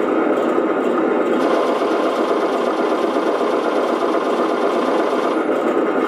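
Simulated tank engine sound running steadily, played by a remote-control model tank's onboard sound unit through a small speaker.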